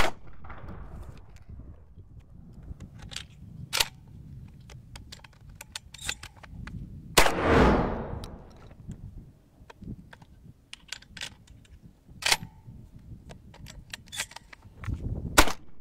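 A Benelli M1 semi-automatic shotgun fired twice, about seven seconds in and near the end, each shot followed by a short echo. In between come a string of sharp clicks and knocks of the gun being handled and loaded.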